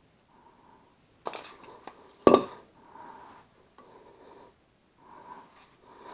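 Metal clinks and stretches of scratchy turning noise as a screw is driven by hand with a screwdriver into a blower motor's steel mounting bracket; a single sharp metallic clank about two seconds in is the loudest sound.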